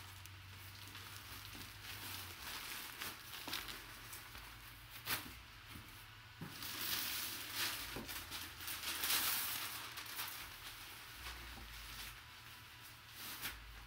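Plastic bag and crumpled brown packing paper rustling and crinkling as hands dig through a cardboard box, with a few light knocks and louder rustles about seven seconds in and again around nine.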